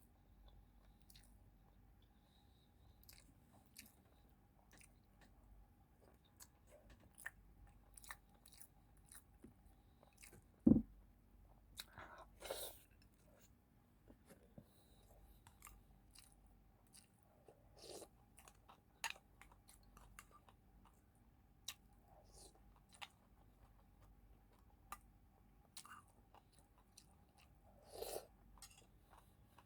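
A person chewing food close to the microphone: soft wet chewing with small clicks and occasional louder crunches. A single dull thump comes about eleven seconds in.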